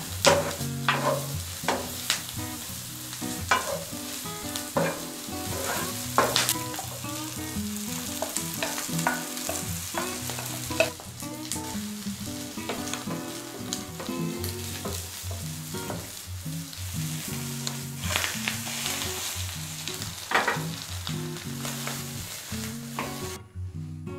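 Green onion and then a shredded cabbage-and-egg patty sizzling in butter in a frying pan, with a wooden spatula stirring and knocking against the pan in frequent sharp clicks. The sizzle cuts off about a second before the end.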